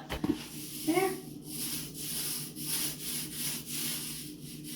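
Paint being applied to a plywood cabinet in repeated back-and-forth strokes, about two a second, each a soft rubbing hiss.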